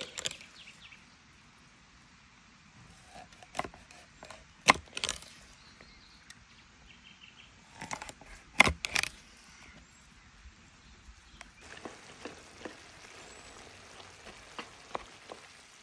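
A knife chopping a salmon into steaks on a wooden chopping block: a few sharp knocks, one group about four to five seconds in and another about eight to nine seconds in. From about twelve seconds in, a steady hiss with small ticks as a pot of vegetables cooks and is stirred with a wooden spoon.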